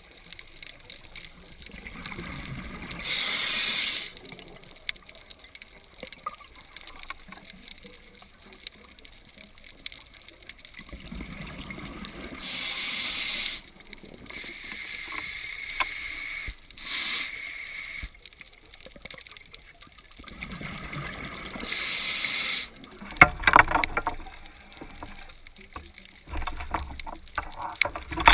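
Scuba diver breathing through a regulator, heard underwater: three hissing inhalations about ten seconds apart, each followed by a bubbling gurgle of exhaled air, the last one the loudest.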